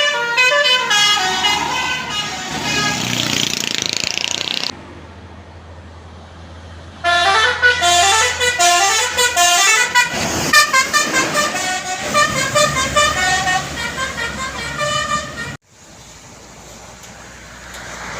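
Basuri telolet musical horn on a tour bus playing quick multi-note melodies in two runs. The first stops about five seconds in; the second starts about two seconds later and cuts off suddenly near the end.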